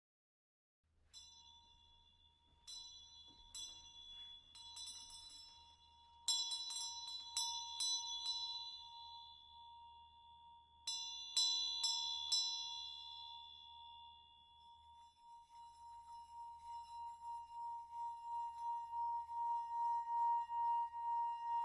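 Trailer score of struck bell-like chimes: about a dozen strikes, some in quick clusters, each leaving a ringing tone that hangs on over a faint low hum. From about two-thirds of the way in a pulsing swell, about one pulse a second, builds steadily louder.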